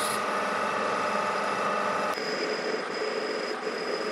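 Metal lathe drilling into a threaded steel workpiece with a twist drill fed from the tailstock, a steady machining sound with a held tone. About two seconds in the sound changes abruptly as a larger drill takes over, opening up the bore.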